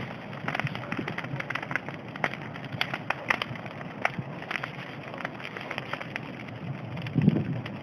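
Wood bonfire crackling, with irregular sharp pops and snaps over a steady hiss, and a brief low rumble near the end.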